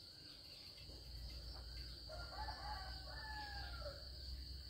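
A rooster crowing once, starting about two seconds in and lasting about two seconds, its call falling away at the end, over a steady high-pitched cricket trill.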